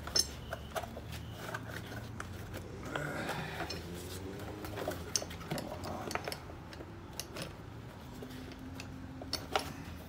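Ford F-150 driver's seat belt assembly being handled: scattered light clicks and clinks of the metal latch plate and plastic trim cover as the webbing is worked out of the plastic piece, with one sharper click near the end.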